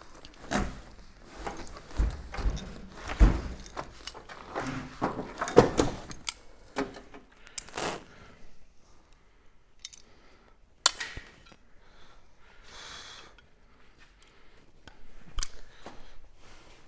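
Irregular clatter of small metal car parts and hand tools: clicks, knocks and scrapes, busiest in the first half, with one sharp click later on and a few more knocks near the end.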